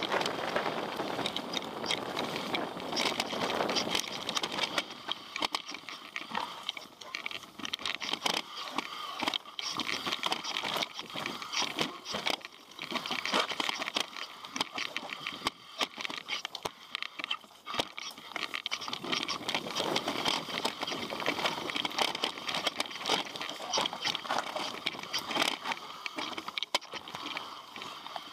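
Mountain bike riding over a rough, stony trail: tyres crunching on gravel and rock, with a dense, irregular clatter of knocks and rattles from the bike.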